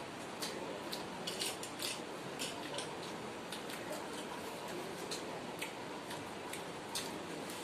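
Eating with the hands from stainless steel plates: fingers mixing rice with fish curry against the metal give irregular clicks and scrapes, several close together about a second and a half in and another near the end. A steady hiss runs underneath.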